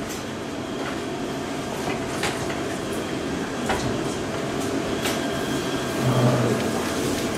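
High-frequency PVC film welding machine humming steadily while film is handled at its welding die, with several light clicks and knocks and a louder low buzz for about half a second near the end.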